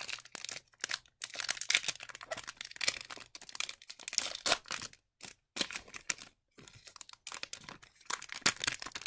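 Hockey trading cards and their foil pack wrapper being handled: irregular rustling, crinkling and small clicks as the cards are pulled out and shuffled.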